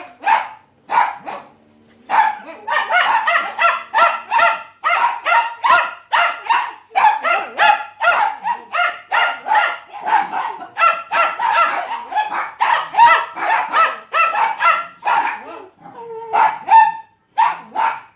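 Dachshunds barking angrily at a vacuum cleaner: fast, overlapping barks, several a second, from more than one dog, with a short lull near the end.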